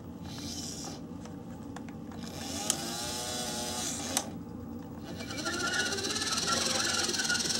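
Battery-powered remote-control toy semi-truck's small electric motor and gears whirring in short runs as it drives, with a whine in the run from about two to four seconds in. Two sharp clicks come a second and a half apart, and a steadier whir starts about five seconds in.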